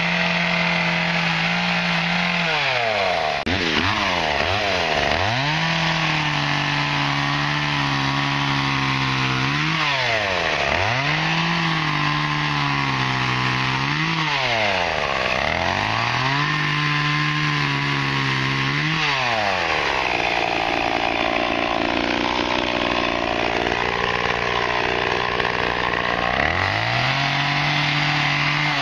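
Homelite chainsaw running at high speed while cutting tree branches. Its pitch falls steeply and climbs back about five times, and it sounds rougher and noisier for a few seconds toward the end.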